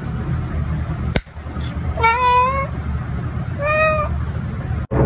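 Cat meowing twice, a longer meow about two seconds in and a shorter one near the four-second mark, with a sharp click shortly before the first.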